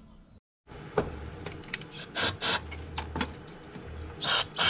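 Aerosol carb cleaner sprayed through a straw into a BMW E46 throttle body in several short hissing bursts, the loudest near the end, to clean out carbon deposits. A sharp knock about a second in and small clicks of handling come between them.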